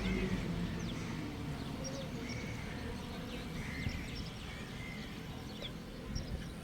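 Several birds chirping and calling, in short scattered notes, over a steady low background rumble.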